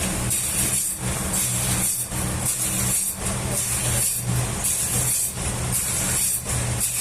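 Sawmill machinery running: a steady low hum with a high hiss on top, dipping briefly about once a second in an even rhythm.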